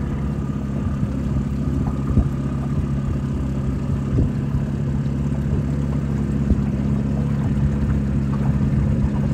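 Small boat's outboard motor running steadily at slow trolling speed, a low, even drone.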